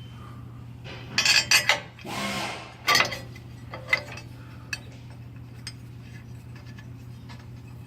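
Metal tools and parts clinking and scraping during hand work on a truck: a quick run of clinks, a short rub, then a few single clicks, over a steady low hum.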